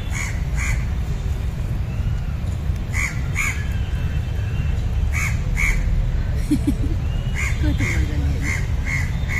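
A bird calling repeatedly in short calls, mostly in pairs about half a second apart, with a quicker run of calls in the last couple of seconds, over a steady low rumble.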